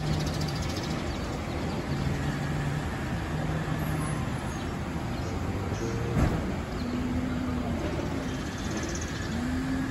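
Steady hum of car and traffic noise, with a few faint pitched sounds over it and one sharp knock about six seconds in.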